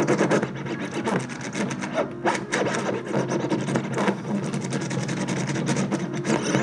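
Vinyl record scratched back and forth by hand on a turntable: a run of quick, irregular scratches over a steady low tone.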